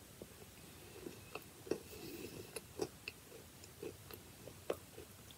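Faint, irregular little crunches and clicks of someone chewing a biscuit close to the microphone.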